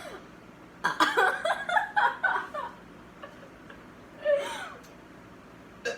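Laughter and giggling in short bursts: a cluster about a second in, then another short laugh with a falling pitch about four seconds in.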